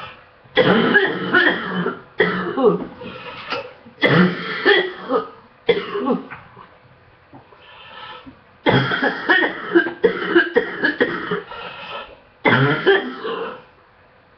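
A sick person coughing in repeated fits, with a break of about two seconds midway. It is a lingering illness cough that is at its worst in the mornings.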